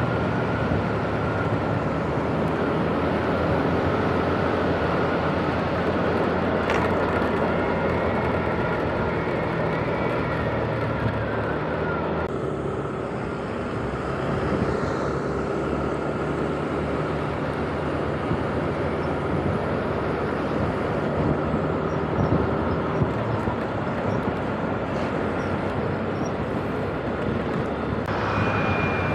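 Steady vehicle running noise: a continuous rumble with a low engine hum. The sound changes abruptly about twelve seconds in.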